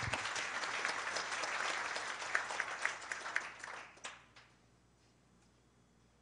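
Audience applauding, dying away about four seconds in to quiet room tone.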